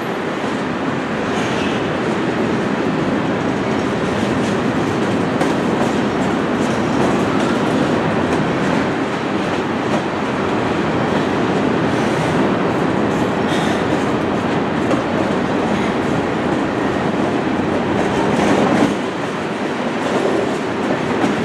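Covered hopper cars of a Canadian Pacific grain train rolling past: a steady rumble of steel wheels on rail with scattered clacks over the rail joints.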